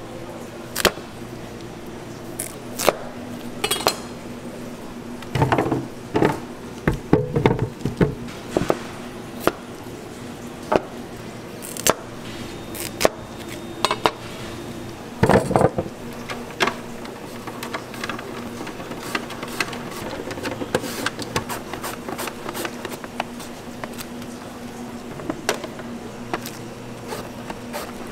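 Chef's knife cutting peeled carrots on a plastic cutting board, in irregular sharp chops. In the latter part come quicker, lighter strokes as a carrot is slid over a mandoline slicer. A steady low hum runs underneath.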